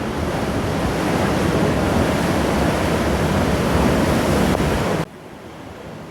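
Ocean surf washing and rushing, a loud steady noise that swells and then cuts off suddenly about five seconds in.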